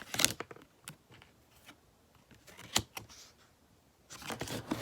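Album packaging and photo cards being handled: a few sharp taps and clicks, the loudest a little before the three-second mark, then paper and plastic rustling near the end.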